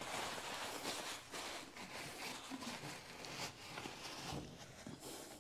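Puppy training pad crinkling and rustling as it is crumpled by hand and stuffed into the mouth of a glass jar, a run of soft crackles that fades near the end.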